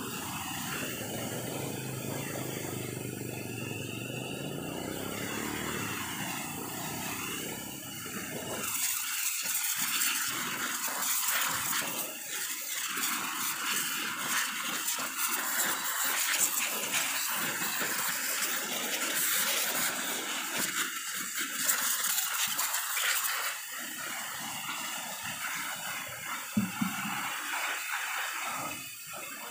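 Pressure washer jet spraying water: a loud hiss starts about nine seconds in and stops around twenty-three seconds. Before and after it there are quieter rumbling water sounds.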